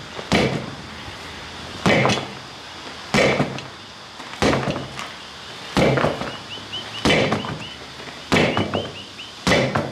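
Sledgehammer striking a steel wheel rim, about eight heavy blows at a steady pace of one every second and a bit, each ringing briefly: hammering a split rim loose from a tyre whose bead has been broken.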